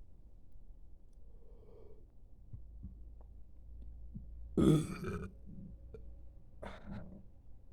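A person belching: one loud belch about halfway through, lasting under a second, followed about two seconds later by a shorter, fainter sound.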